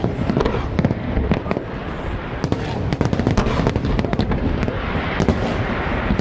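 Fireworks display: a rapid, unbroken series of aerial shell bursts, booms and crackles overlapping one another.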